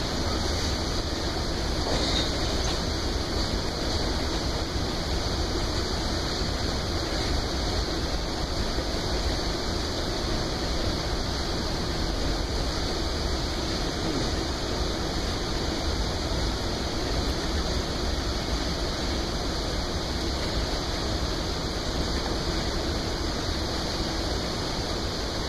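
Freight train's boxcars rolling past: a steady noise of steel wheels running on the rails.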